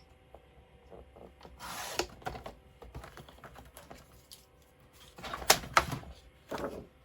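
Paper and craft supplies being handled on a table: scattered light taps and clicks, a short rustle of paper about two seconds in, and louder rustling and knocks between five and seven seconds in.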